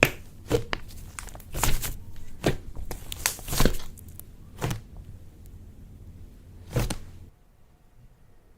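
Slime being squished and worked by hand, giving irregular crackles and pops that stop about seven seconds in.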